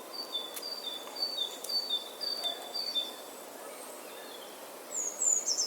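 A bird calling a rapid series of short whistled notes that alternate between a higher and a lower pitch for about three seconds, then a couple of higher falling notes near the end, over a faint outdoor background hiss.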